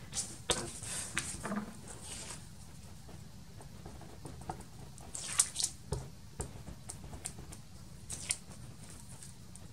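Sheets of paper being handled and readied for gluing: scattered rustles and light taps, clustered in the first two seconds and again about five and eight seconds in.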